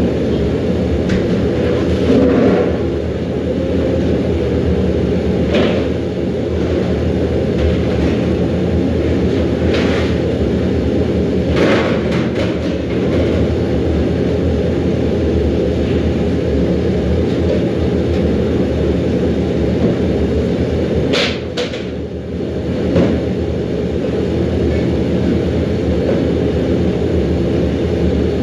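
Steady, loud low rumble of large stockpots on high-output gas burners, the nearest pot of rice at a foaming rolling boil, with a few short clicks and knocks scattered through it.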